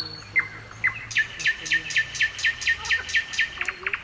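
Nightingale singing: a couple of falling whistles, then a series of about ten evenly repeated notes at roughly four a second, breaking into a faster rattle near the end.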